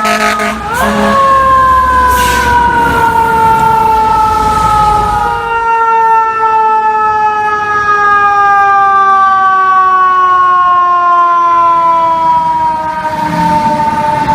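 A fire truck's mechanical siren of the Federal Q type spins up sharply about a second in, then winds down in one long, slow falling wail as it coasts. The truck's engine and road noise run underneath for the first five seconds or so, then fall away.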